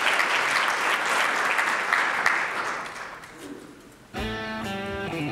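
Audience applauding, fading out after about three seconds; about four seconds in, guitar music starts suddenly.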